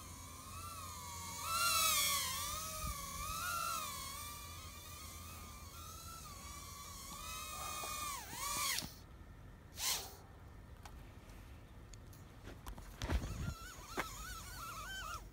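Cheerson CX-10 nano quadcopter's tiny motors whining at a high pitch that rises and falls as the throttle changes. About nine seconds in, the pitch dives and the whine stops as the motors cut. A short rushing noise, a few knocks and a brief return of the whine follow near the end.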